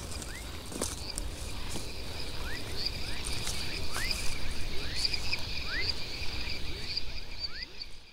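Outdoor nature ambience of insects trilling steadily in two high bands, with short rising chirp-like calls from another animal repeating once or twice a second and a few faint clicks. It fades out near the end.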